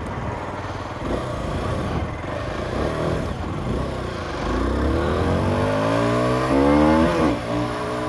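Aprilia SX125's single-cylinder four-stroke engine on the move. From about four and a half seconds in, its pitch climbs steadily under acceleration, drops back sharply just after seven seconds, then runs steady.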